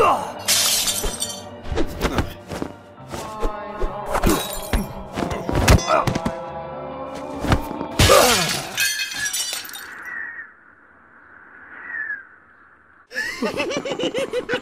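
Film score with a string of hit and crash sound effects, two of them loud breaking crashes, about a second in and about eight seconds in. The sound drops away to a faint fading tone for a few seconds, then cuts back in suddenly near the end.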